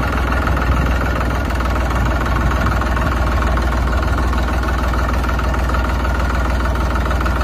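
Tractor engine idling steadily, a loud even low hum with no change in speed.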